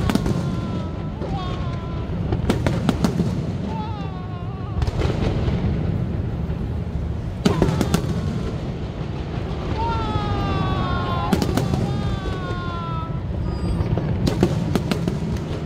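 Aerial fireworks display: shells bursting in a series of sharp bangs, about seven spread through, over a steady low rumble. Several long whistles slide down in pitch between the bangs.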